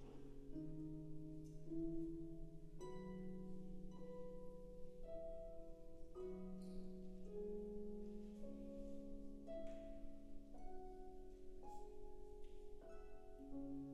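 Wind band playing slow, sustained chords that shift about every second or two, with plucked harp notes sounding at the changes.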